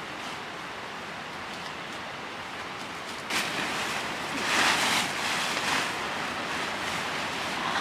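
Armloads of cut leafy fodder branches rustle and crash as a back-load of leaves is thrown down onto a pile, loudest about halfway through. Under it runs a steady hiss.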